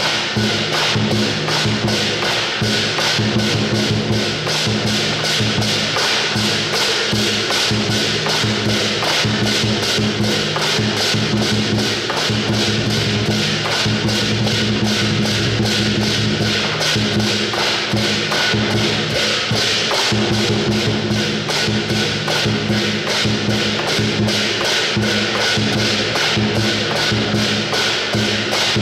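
Chinese lion dance percussion: a big drum beaten in a fast, steady rhythm with clashing cymbals and gong.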